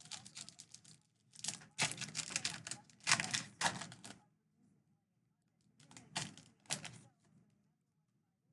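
Foil wrapper of a Donruss baseball card pack crinkling and tearing as it is opened, a dense rapid crackle. It comes in two bursts: a long one lasting about four seconds, then a shorter one about six seconds in.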